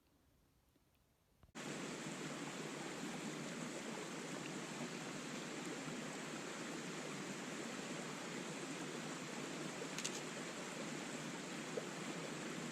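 Steady rushing of a stream, which cuts in suddenly about a second and a half in and then holds even.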